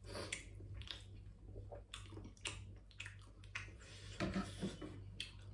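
Faint eating sounds: naan being torn by hand and chewed, a scatter of small soft clicks, with a brief low hum about four seconds in.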